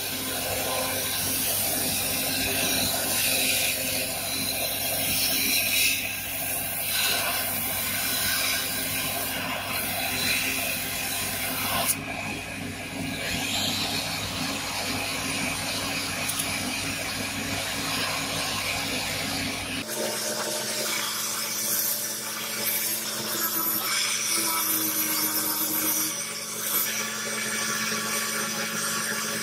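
Belt grinder running as a steel knife blade is pressed against the abrasive belt, a continuous hissing grind over the motor's steady hum. The sound changes suddenly twice, and about two-thirds of the way in the hum drops to a different pitch.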